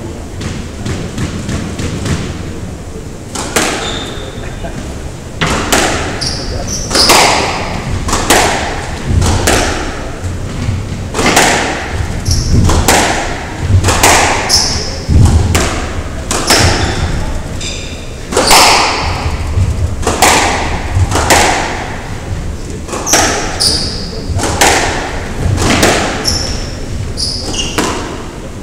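Squash rally in a walled court: the ball cracks off the rackets and thuds off the walls about once a second, each hit ringing in the hall, with short high squeaks of shoes on the wooden floor between hits. The hits start a few seconds in.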